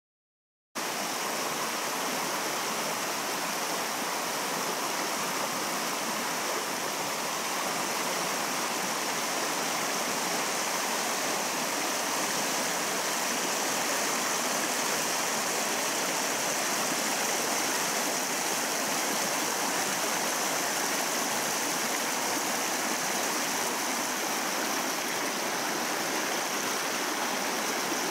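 A rocky river running over stones and riffles: a steady rush of flowing water that cuts in abruptly just under a second in.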